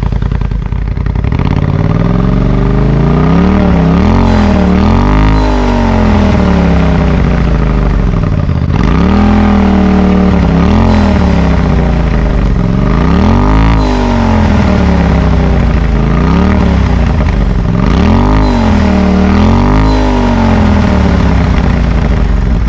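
Polaris RZR Pro XP's turbocharged twin-cylinder engine, just started and breathing through a 3-inch RPM Powersports Monster Core stainless exhaust, idling and being revved in short throttle blips, several quick rises and falls in pitch in groups of two or three.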